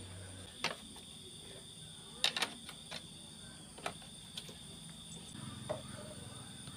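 A few scattered light metal clicks and taps, one of them a quick double click about two and a half seconds in, from bolts and a socket wrench being handled while the radiator's mounting bolts are put in.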